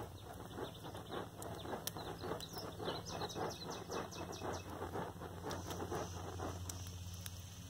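A bundle of dry twigs, smouldering, rustles and crackles in quick even strokes, about four or five a second, as it is waved to fan it into flame. A bird calls over it in a run of short falling notes around the middle.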